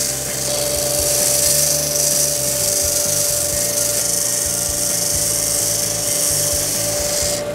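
Record Power DS300 disc sander running with a steady motor hum, its abrasive disc grinding a wooden workpiece with a hiss. The hiss cuts off near the end as the wood comes off the disc, while the motor keeps running.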